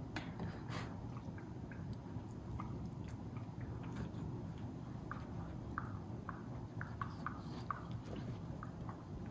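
Two miniature schnauzers play-wrestling, mouthing and nipping at each other: soft quick clicks and snaps of their jaws, coming in a run in the second half, over a low steady hum.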